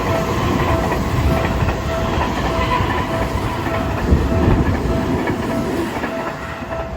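Seibu Railway train running past a level crossing, its wheels clattering over the rail joints, while the crossing's warning bell rings a steady kan-kan about twice a second. The train noise eases slightly near the end.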